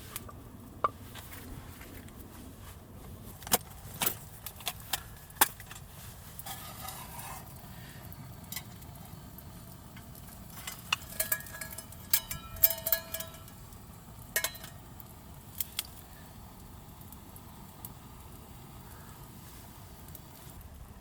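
Metal camp cookware and utensils clinking and knocking, in scattered clusters, a few strikes ringing briefly, over a steady low background noise.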